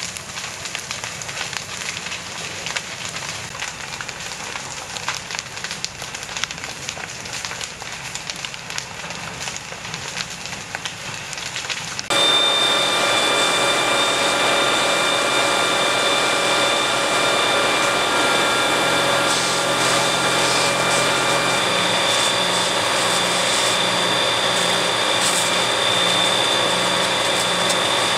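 A burning chalet crackling with frequent sharp pops over a rushing noise. About twelve seconds in, the sound cuts to a louder, steady engine drone with several high whining tones: a fire engine's pump running to feed a water hose.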